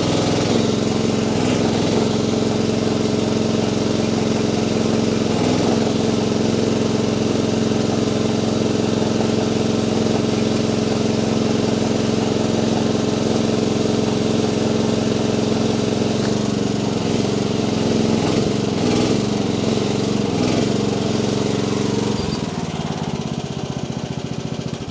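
Mini-excavator engine running steadily at working speed while the log grapple is operated. Its note wavers under changing load in the last third, then eases down near the end.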